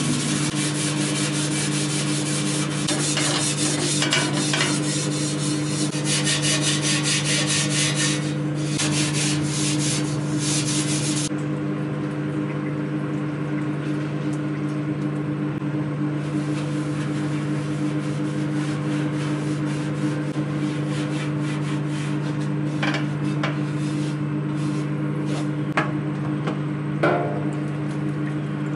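Loose paint being scrubbed off a vintage mower's sheet-metal body by hand, in fast, continuous rubbing strokes for about the first eleven seconds. After that come lighter, occasional rubs and a few small knocks, over a steady low hum.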